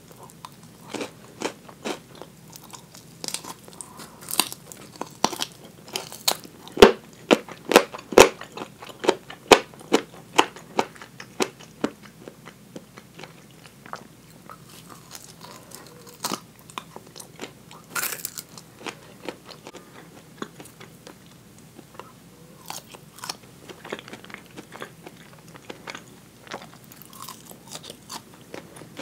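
Close-miked crunching bites and chewing of crispy fried chicken tulip drumettes, the fried coating crackling. The crunches come thickest and loudest about seven to eight seconds in, then thin out to sparser chewing.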